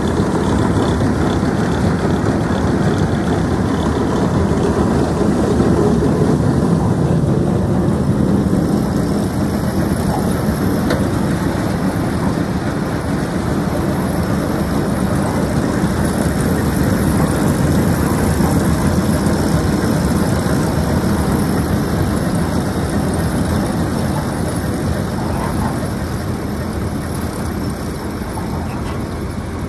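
Tractor engine running steadily, a loud, even engine noise that eases off a little near the end.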